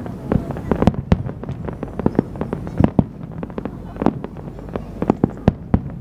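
Aerial firework shells bursting in rapid succession: an irregular volley of sharp bangs, several a second.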